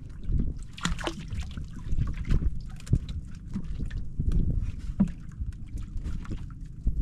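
Wind buffeting the microphone with water sloshing against a small boat, and scattered sharp knocks and clicks throughout, the sharpest about two and a half and five seconds in.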